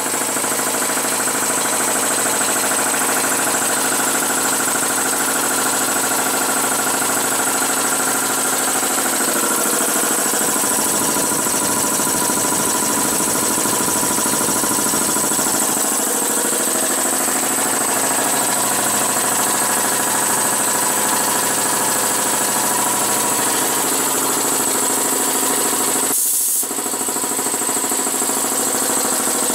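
Two-stage electric air compressor running steadily, pumping up its tank.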